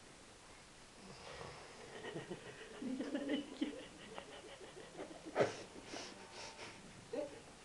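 Wheezy, snore-like breathing, with a sharp click about five seconds in.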